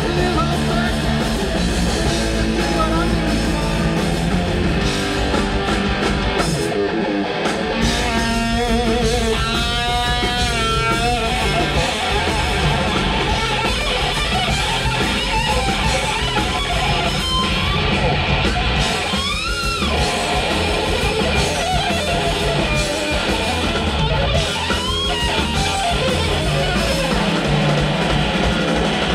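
Live rock band playing at full volume: electric guitars, bass and drums. A lead guitar plays wavering, bent notes about a third of the way in and again a little past the middle.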